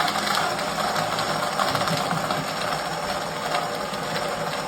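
Cheap $12 electric blender running steadily, its blades crushing ice with tequila and lime juice, with a fine rattle of ice chunks in the jar.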